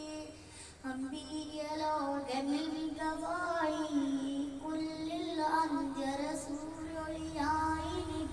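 A boy singing a madh song (a devotional song praising the Prophet) into a handheld karaoke microphone, with long held notes that bend in pitch and a short break just under a second in.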